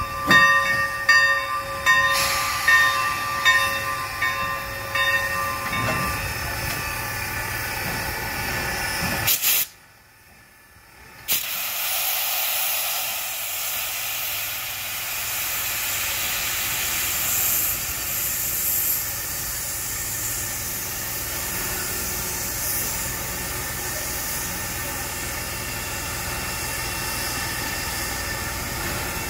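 Sierra Railway No. 28, a 2-8-0 steam locomotive, standing and hissing steam, with its bell ringing in steady strokes for the first few seconds. The sound drops out briefly around ten seconds in, then the steady steam hiss runs on.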